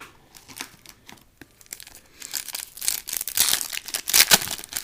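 A baseball card pack wrapper being torn open and crinkled by hand: a few light rustles at first, then a second or two of dense crackling tearing and crumpling near the end.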